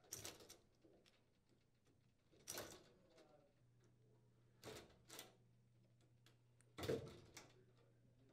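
A handful of brief, faint clicks and scrapes as needle-nose pliers pull the wire connectors off the plastic terminals of a gas cooktop spark module, the strongest about seven seconds in; otherwise near silence.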